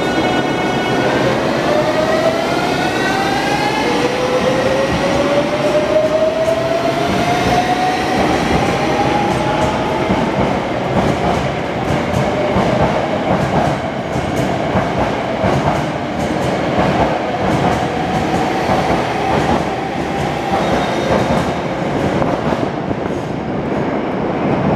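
Hankyu 8000-series electric train set 8002F accelerating away from a station platform. Its inverter and traction motors give a whine that steps up and then rises in pitch in several stages over the first ten seconds or so, over a heavy running rumble with wheel clatter. This is the set labelled an 'abnormal-noise car' (異音車) for its traction sound.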